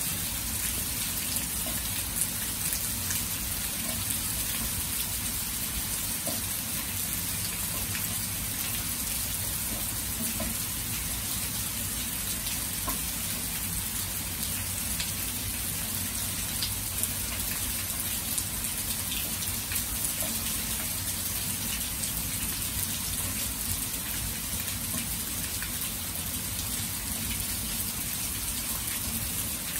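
Heavy rain falling steadily onto open water and grass: an even hiss with scattered drop ticks, over a low steady rumble.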